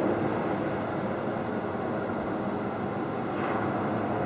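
A steady, low droning rumble with faint held tones in it, the kind of night-time noise reported as 'sky trumpets' (Himmelsposaunen), which the recorder suspects may come from HAARP.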